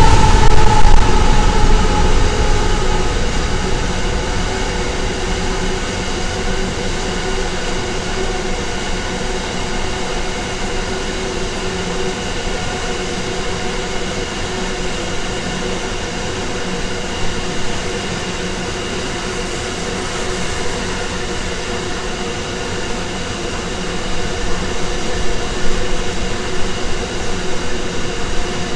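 Loaded grain hopper wagons of a freight train rolling past: a steady wheel-on-rail rumble with a faint hum. In the first few seconds the diesel locomotives' engine note drops in pitch and fades as they move away. Near the end the wheel noise grows louder and more uneven.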